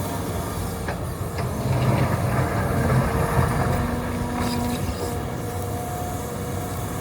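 Hitachi 350 excavator's diesel engine working under hydraulic load, getting louder a couple of seconds in, with a few short knocks.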